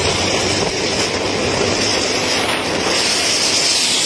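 Loud, steady wind rush on the microphone mixed with road and engine noise from riding a two-wheeler at speed.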